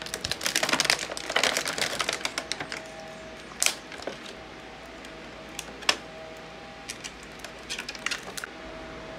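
Clear plastic bag and plastic packaging crinkling and crackling as toy pieces are pulled out. The crackling is dense in the first few seconds, then comes as a few single sharp plastic clicks and a short burst of crinkling near the end.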